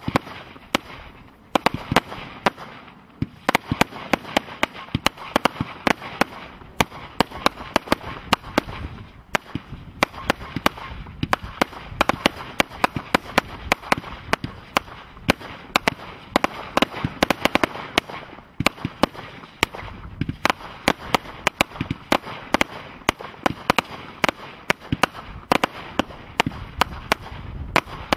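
King of Colour multi-shot firework cake firing continuously: an uneven stream of sharp bangs and pops, several a second, from the shots launching and bursting.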